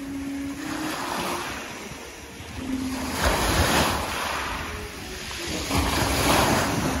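Sea waves washing in, with two louder surges about three and six seconds in, and wind rumbling on the microphone.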